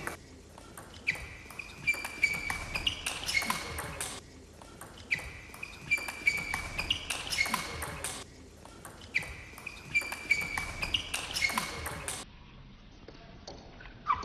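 Table tennis rally: the celluloid ball clicking off bats and table in quick exchanges, with short high squeaks in between. The same few seconds of play repeat three times, then the sound turns duller near the end.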